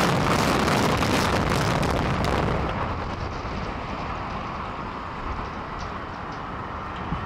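Rumble of a 32-story hotel tower collapsing in an explosives implosion, dense with crackling debris noise, dying down about two and a half seconds in to a lower rumble.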